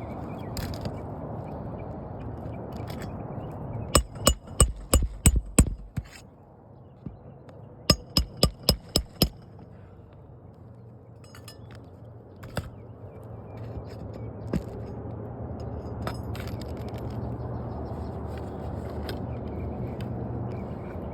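Hammer driving roofing nails into a shingle repair, in two quick runs of about six strikes each, every strike ringing briefly.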